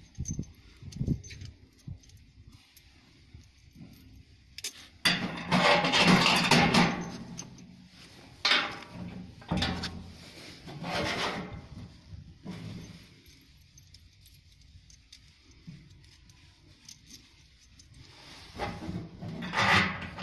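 Small bolts and nuts rattling and scraping against the sheet-metal floor of a tricycle's cargo box as they are fitted by hand, in irregular bursts of metallic clatter with a quiet stretch in the middle.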